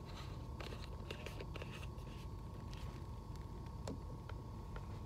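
Light plastic clicks and ticks as the cap of a plastic sauce bottle is twisted open, most of them in the first two seconds, then a tap at about four seconds as the bottle is set down on the table. Under it, the steady low hum of a train carriage with a faint steady tone.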